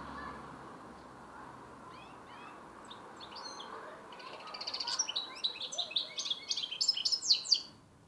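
Goldfinch (Carduelis carduelis parva) × canary mule, a young bird learning its song, singing. A few faint notes come first, then about halfway a loud, fast run of twittering trills that stops abruptly near the end.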